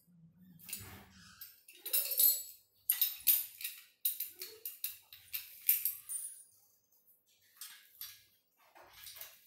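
Small metal bolts, nuts and washers of a treadmill assembly kit clinking and rattling as they are handled, in irregular runs of quick clicks with a short pause near the middle.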